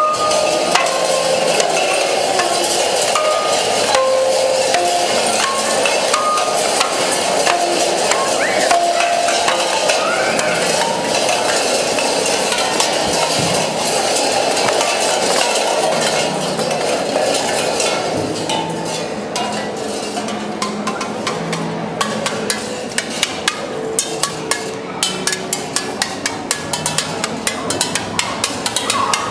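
Sound costumes hung with tin cans and plastic bottles make a continuous jangle of clinks and rattles. About two-thirds of the way in, this gives way to a thin stick tapping the tin cans in quick, irregular strokes.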